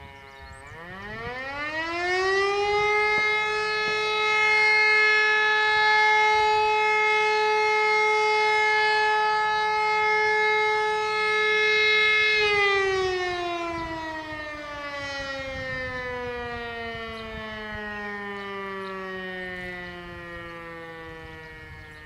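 Siemens E57 electro-mechanical siren sounding the fire alarm signal that calls out the volunteer fire brigade, during a routine test. One blast winds up over about two seconds and holds a steady pitch for about ten seconds. It then winds down slowly, its pitch falling until the end.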